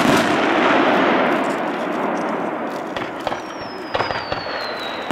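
Fireworks going off: a bang at the start followed by dense crackling that slowly fades over a few seconds. More sharp bangs come near the end, under a whistle that slides slowly down in pitch.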